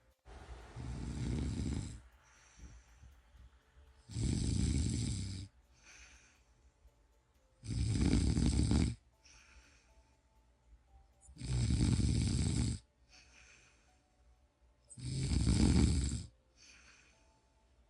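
A person snoring: five loud snores, evenly spaced about every three and a half to four seconds, each followed by a softer breath out.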